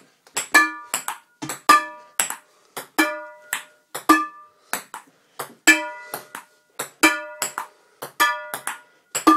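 A table-tennis rally played with a metal frying pan as a bat: the pan rings with a pinging tone each time it strikes the ball, about eight times a little over a second apart, with short sharp clicks of the ball between the pan hits.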